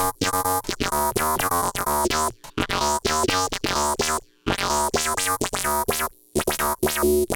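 Blipblox synthesizer playing a fast sequence of short, harmonically rich notes through a Eurorack modular's envelope-controlled filters, with the envelope attack time being adjusted. The sound drops out briefly about two, four and six seconds in.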